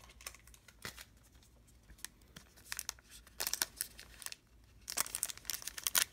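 Wrapper of a trading-card pack crinkling and tearing as it is pulled open by hand. It starts as scattered crackles and becomes denser crinkling from about three seconds in, heaviest near the end.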